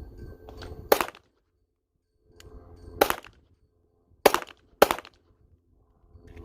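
Four pistol shots from a Canik TP9SFX 9mm: one about a second in, another about two seconds later, then two more in quick succession about half a second apart.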